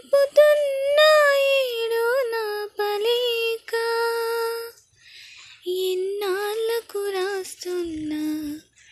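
A female voice singing a slow melody unaccompanied, with held and gliding notes and a brief pause a little after halfway.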